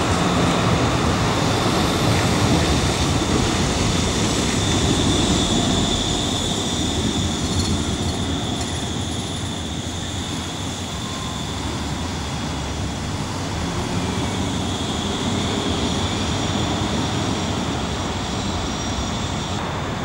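Street trams rolling past on street track: a steady rumble and hiss with a thin high tone that is strongest from about a quarter to halfway through.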